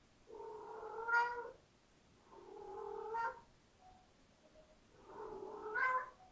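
Kitten meowing: three long, drawn-out meows a couple of seconds apart, each growing louder toward its end.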